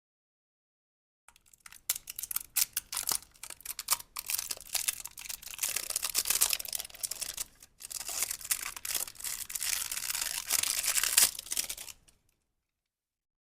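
Packaging being torn open and crinkled by hand: a dense crackling rustle that starts about a second in, breaks off briefly about halfway, then resumes and stops shortly before the end.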